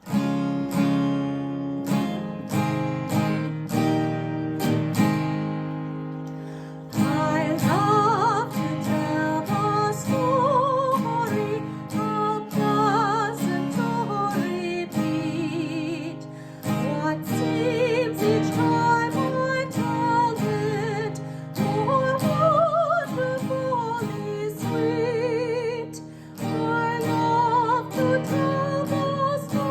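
Acoustic guitar strummed in steady chords, with a voice singing a melody over it from about seven seconds in.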